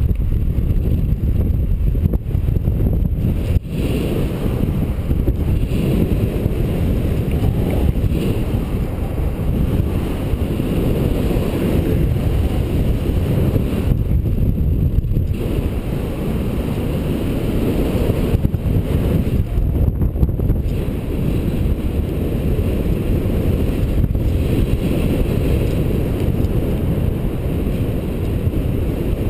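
Strong wind buffeting the microphone: a loud, steady low rumble with no breaks.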